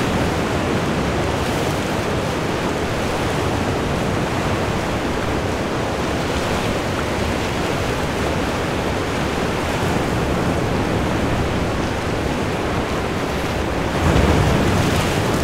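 Ocean surf washing steadily in over shoreline rocks, a continuous rush of breaking water, swelling louder near the end as a bigger wave comes in.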